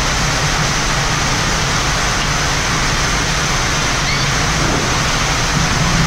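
Steady rush of airflow noise in a Boeing 787 flight deck on final approach, with a constant low hum underneath; the airliner is in landing configuration with gear down and flaps extended.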